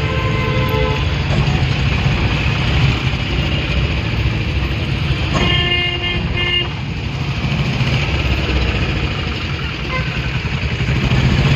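Steady engine and road rumble of slow city traffic, heard from inside a car. A vehicle horn honks for about a second, around five and a half seconds in.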